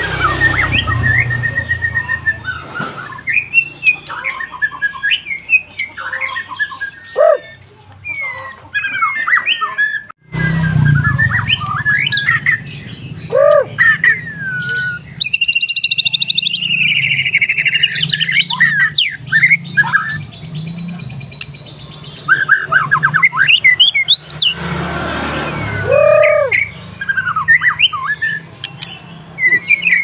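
White-rumped shama (murai batu) in full song: a continuous run of varied clear whistles, swooping notes and quick trills, with a harsh, buzzy stretch in the middle. The song breaks off briefly about ten seconds in.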